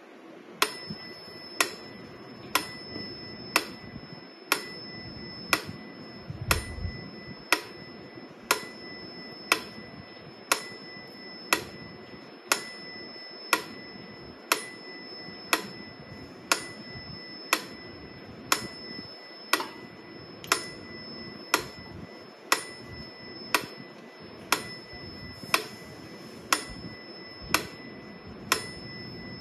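Mechanical pendulum metronome ticking steadily, about one sharp click a second, starting about half a second in.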